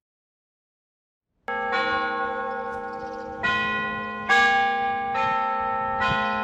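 Church bells start ringing about a second and a half in, after silence: five strikes at differing pitches, roughly one a second, each ringing on under the next.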